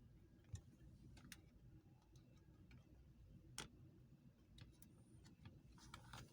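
Faint, scattered plastic clicks and ticks as the laptop's bottom cover is pried loose and its edge clips let go, at uneven intervals with the clearest click about halfway through and a few together near the end.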